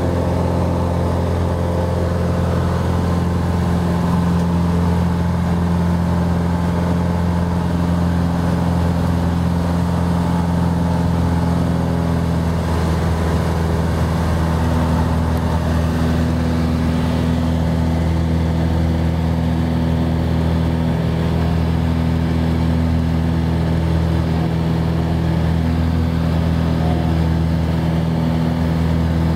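Cessna 180's six-cylinder Continental O-470 engine and propeller running steadily at take-off power through the climb-out, heard from inside the cabin as a loud, even drone.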